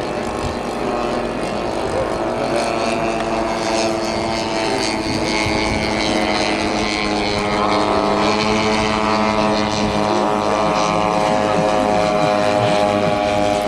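Piston engines of propeller-driven biplanes droning steadily in flight, with a shift in pitch about halfway through as the plane passes.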